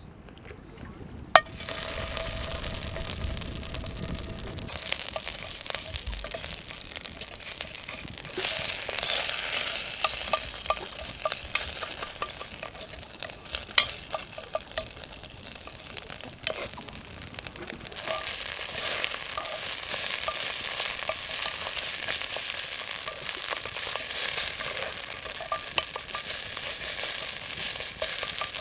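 A red paste frying and sizzling in hot oil in a cast-iron Dutch oven, stirred and scraped with a wooden spatula, with small clicks as the spatula works it. The sizzle starts abruptly about a second in.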